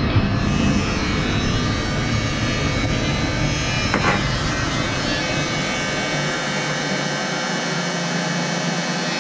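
Handheld electric heat gun running steadily, its fan whining as it blows hot air to shrink heat-shrink tubing over crimped wire connectors. A single knock about four seconds in.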